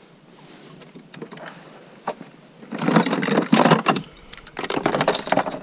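A wounded teal beating its wings while held in the hand, making a rapid clattering flutter in two loud bouts in the second half.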